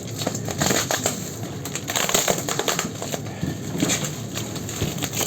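Layered parcel packaging being torn and crumpled open by hand: a continuous run of irregular crackling and rustling.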